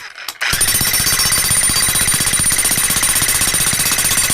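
Hercules electric jackhammer fitted with a tamping plate, hammering rapidly and steadily. It cuts out briefly and starts again about half a second in.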